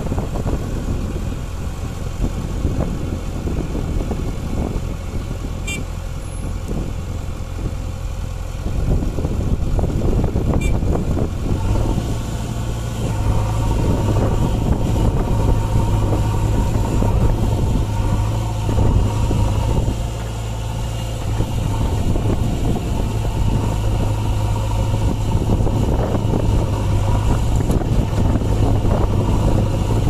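JCB 3DX backhoe loader's diesel engine running, revving up about a third of the way in and holding the higher revs under hydraulic load as the backhoe arm digs soil, with a short dip in revs about two-thirds of the way through.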